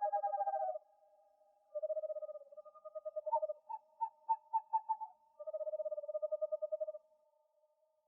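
Owls calling: a series of rapid pulsed trills, each about a second long, with a run of separate short hoots, about three a second, in the middle.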